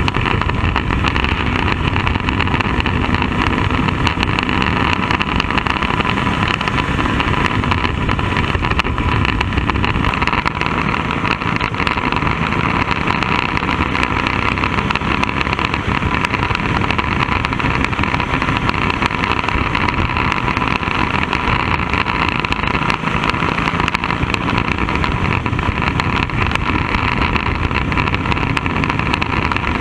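Bandolero race car's small single-cylinder engine running steadily at speed, heard loud from inside the cockpit.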